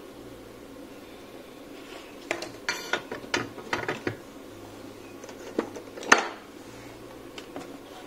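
Soldering iron being set back into its metal stand: a quick run of metal clinks and taps a couple of seconds in, then one sharp, louder click a few seconds later.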